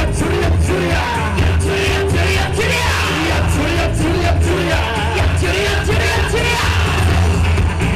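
Yosakoi dance music played loud with a steady beat and a sung or played melody, with shouted calls from the dancers over it.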